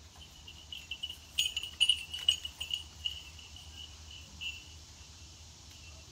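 An insect chirping in a rapid, high-pitched pulsing trill that is strongest in the first half. It is broken by a few sharp clinks between about one and a half and two and a half seconds in.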